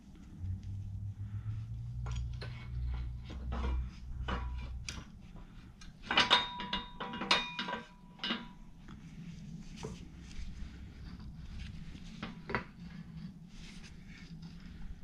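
Metal parts clinking and knocking as a U-joint and driveshaft yoke are handled in a steel hydraulic shop press. A low rumble runs through the first few seconds, and about six seconds in comes a burst of loud metal clanks that ring briefly.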